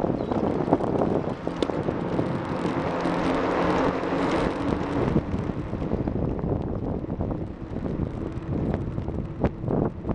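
Wind rushing over the microphone of a camera duct-taped to a moving bicycle, with steady rolling noise from the ride. There are a few sharp clicks and rattles from the bike, one plain one near the end.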